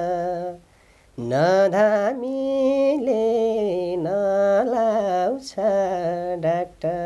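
A man singing a slow Nepali folk song unaccompanied, holding long notes that bend and slide in pitch. He pauses briefly about a second in, then sings on.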